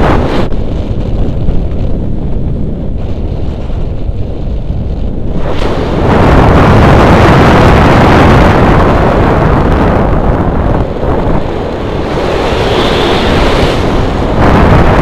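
Airflow buffeting the microphone of a camera on a paraglider in flight: a loud, steady rush of wind noise that swells louder about six seconds in and eases again a few seconds later.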